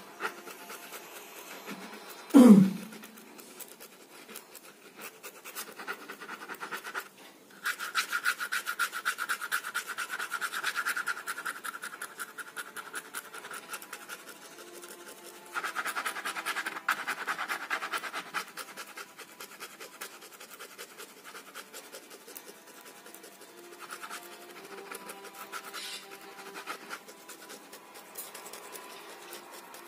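Ballpoint pen scratching across carpet in fast back-and-forth hatching strokes, with two long spells of rapid strokes in the middle. About two seconds in, one short, loud sound sweeps steeply down in pitch.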